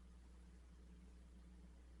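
Near silence: dead air on the weather radio broadcast, only a faint steady low hum and hiss.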